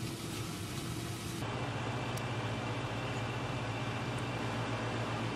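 A steady low mechanical hum with an even hiss over it, like a running fan; the hiss gets louder about a second and a half in.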